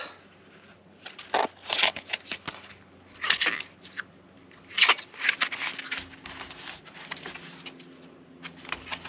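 Pages of a paper booklet being turned by hand: about half a dozen short paper rustles, a second or two apart.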